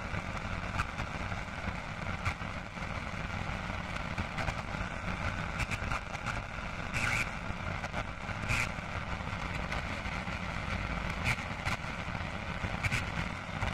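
Steady, noisy low rumble with scattered crackles and clicks: an ambient noise intro before the song's band music comes in.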